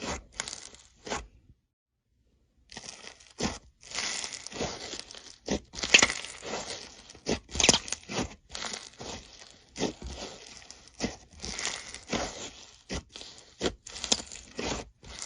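Slime being squeezed and stretched by hand, giving irregular short pops and crackles. There is a brief silent break about two seconds in.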